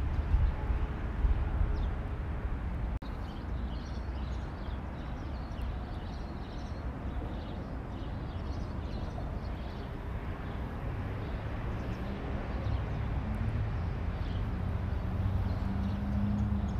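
Outdoor ambience: a steady low rumble of wind on the microphone and distant traffic, with faint chirps of small birds for several seconds from about three seconds in.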